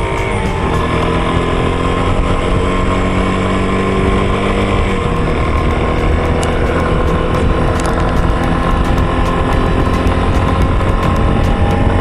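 Yamaha Tricker's single-cylinder engine pulling under way, its pitch climbing slowly and changing about five seconds in, over steady wind rumble.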